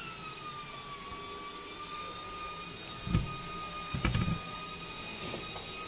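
A motor whirring with a steady whine over a hiss, the whine settling slightly lower in pitch during the first second; two dull knocks about three and four seconds in.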